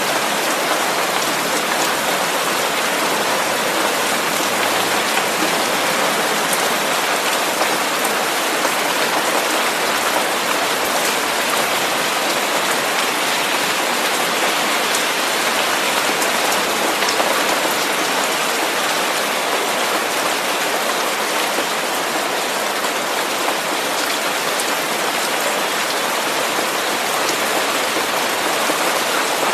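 Steady, even hiss of white noise that sounds like heavy rain, spread from the low-mids to the very highs with little bass, with faint scattered ticks like drops.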